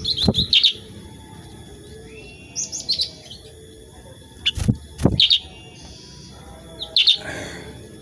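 Caged black-headed bulbul calling in short bursts of sharp, high chirps: four bursts spaced a second or two apart. A few sharp knocks fall among the calls.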